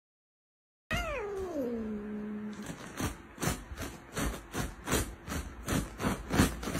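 Orange tabby cat vocalising: one long meow that slides down in pitch and holds, then a quick run of short, noisy cries, about three a second.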